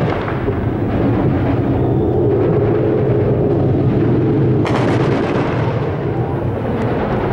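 Loud, steady rumbling roar of a jet warplane overhead. A harsher, hissier noise cuts in sharply about four and a half seconds in.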